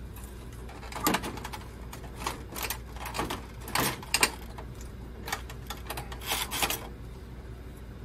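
Irregular clicks, knocks and light rattles of plastic and sheet-metal parts handled by hand inside an open printer chassis. The loudest knocks come about a second in and around four seconds in.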